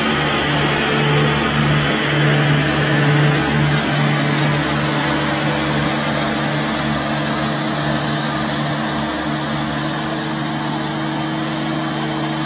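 A machine's motor running steadily: a constant hum over a dense mechanical hiss, a little louder in the first few seconds.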